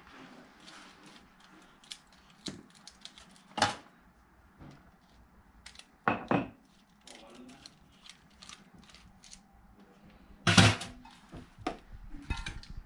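Small metallic clicks and scrapes of a screwdriver working at the main jet of a dirt bike carburetor, with a few louder knocks of metal, the loudest about ten and a half seconds in.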